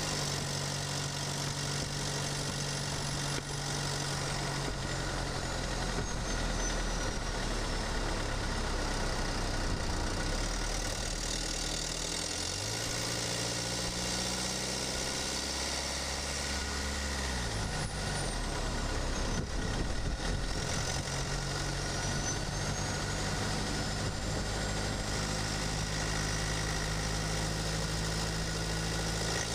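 Mercedes-Benz E250 BlueTec's OM651 2.1-litre four-cylinder twin-turbo diesel running while driving, heard from a microphone in the engine bay. Its engine speed drops and rises several times, and a faint high whistle glides slowly up and down.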